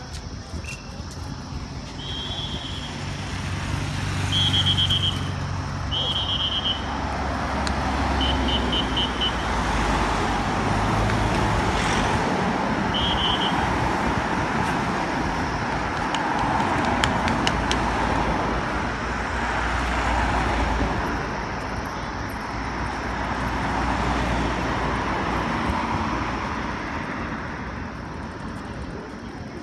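A convoy of cars and SUVs driving past at speed, with tyre and engine noise that swells as each vehicle passes. In the first half there are several short, high whistle blasts, one of them trilling.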